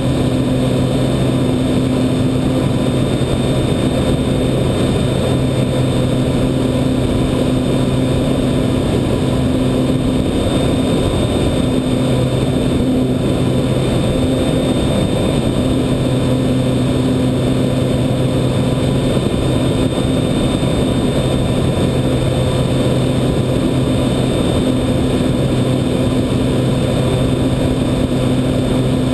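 Onboard sound of a Radian RC glider's electric motor and propeller running with a steady hum, under heavy wind rush on the onboard camera's microphone.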